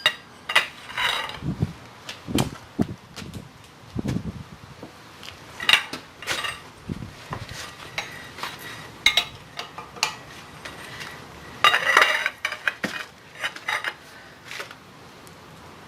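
Hand tools on steel: irregular metallic clinks and knocks as a wrench works the bolts of a taper-lock bushing, tightening them in turn to jack the coupling off the jackshaft. Some clinks ring briefly, with a quick cluster of them near the end.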